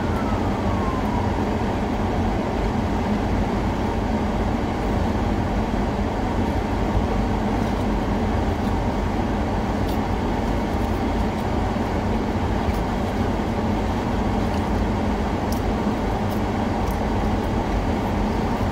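Steady low rumble of a moving vehicle that holds level throughout, with a siren's falling wail dying away about a second in.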